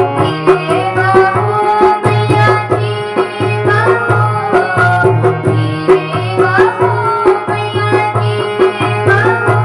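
Devotional Hindi bhajan music: tabla keeping a steady rhythm under a gliding melodic line.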